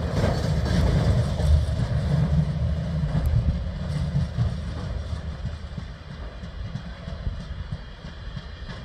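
Lignite-dust freight train's silo tank wagons rolling away along the track, the low rumble and knocking of their wheels on the rails steadily fading.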